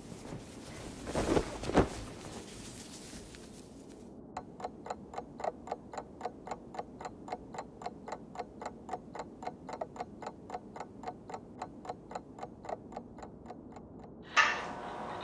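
A clock ticking steadily, about four ticks a second, starting about four seconds in. Before it there is a hiss with two knocks, and near the end a louder ringing sound cuts in.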